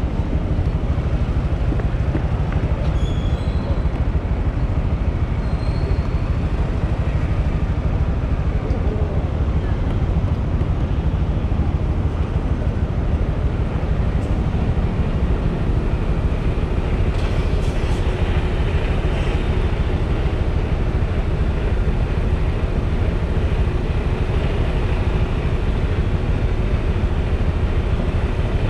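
Honda MSX 125 motorcycle on the move in traffic: its small single-cylinder four-stroke engine and road noise under a heavy, steady rumble of wind on the microphone.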